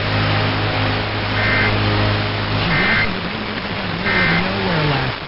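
Three short bursts of Emergency Alert System digital data tones, about a second apart, over a steady hiss and low hum, as heard off a radio broadcast. Short bursts repeated three times like this are the end-of-message signal that closes an EAS alert.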